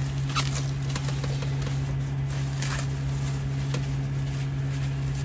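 Plastic bubble wrap rustling and crinkling in short bursts as a large sheet is handled and pressed against a van ceiling, over a steady low hum.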